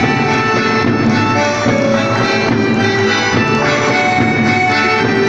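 Instrumental music with held, overlapping notes at a steady level.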